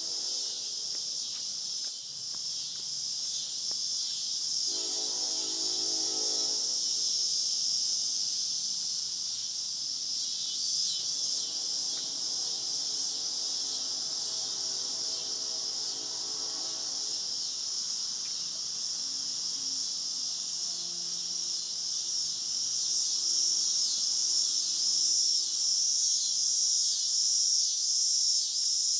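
Steady insect chorus, a shrill high trill. Twice a fainter low hum with several steady tones comes and goes beneath it.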